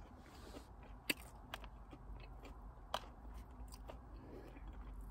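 Faint chewing and mouth sounds of a person eating fried mozzarella sticks, with a few sharp clicks, the loudest about a second in and about three seconds in.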